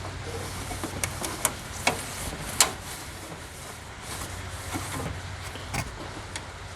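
Scattered light clicks and knocks from wiping out and handling things inside a sheet-metal toolbox, the loudest about two and a half seconds in, over a steady low hum.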